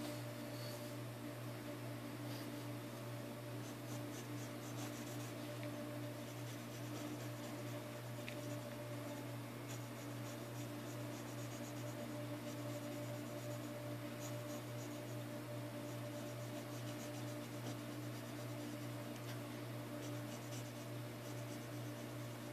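Mechanical pencil lead scratching on paper in short, irregular sketching strokes, over a steady low hum.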